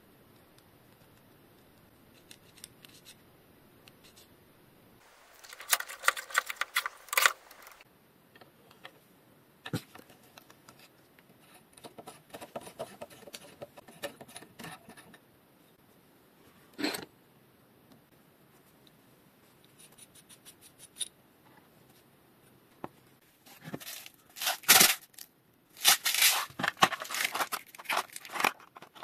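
Bicycle hub servicing by hand: intermittent bursts of small clicks, scrapes and rustling from parts and tools being handled, the loudest bursts near the end.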